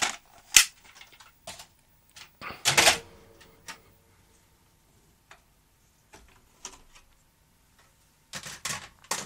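Clicks and clatter of plastic and metal parts being handled on an opened Philips N1700-type video cassette recorder: a sharp click about half a second in, a louder clatter around three seconds, a few light ticks, and another clatter near the end.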